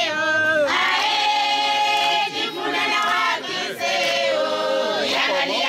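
A group of women singing together in chorus, holding long notes that slide from one pitch to the next.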